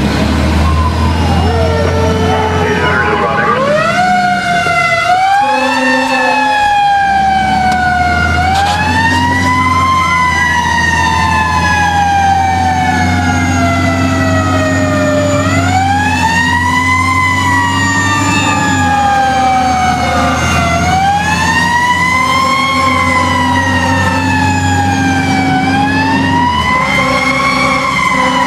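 Fire truck siren heard from inside the cab, winding up quickly and falling slowly in repeated wails about every five to six seconds. The truck's engine drones steadily underneath.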